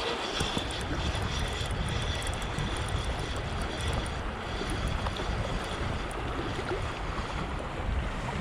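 Wind buffeting the microphone in a steady low rumble over the even rush of a creek.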